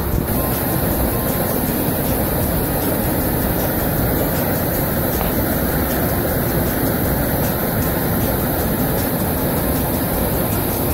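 Muddy floodwater rushing out of a concrete box culvert under a road and churning into white water below: a loud, steady noise of fast water. The creek is swollen with flash-flood runoff.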